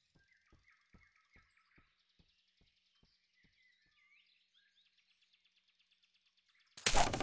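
Quiet forest ambience: faint bird chirps over soft, evenly spaced ticks, about two and a half a second, that fade out. Near the end a sudden loud rush of noise lasts about half a second.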